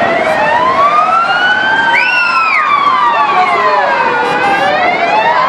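Several emergency-vehicle sirens wailing at once, each slowly rising and falling in pitch out of step with the others; about two seconds in, a short higher-pitched rise-and-fall cuts across them.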